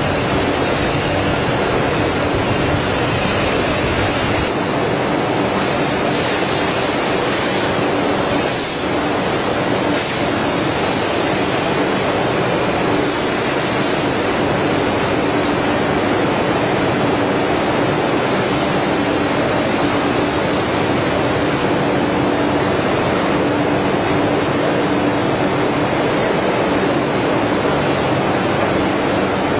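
Veneer splicer machine running: a steady mechanical hiss with a constant low hum, the high hiss brightening for a few seconds at a time.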